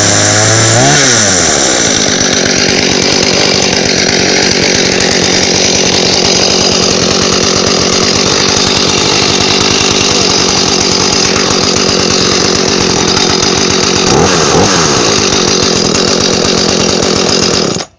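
Klever GS5200N two-stroke petrol chainsaw running just after being started, following a starter repair. Its pitch rises and falls about a second in and again near the end, and then the engine cuts off suddenly.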